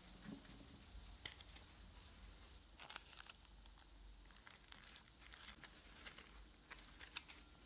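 Faint, scattered rustling and crinkling of tissue paper squares being handled and pressed by fingers onto a glue-coated tin-foil shape, with a few soft clicks.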